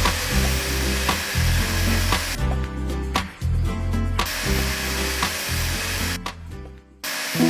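A power tool running with a steady whirring noise that cuts out briefly twice, over background music.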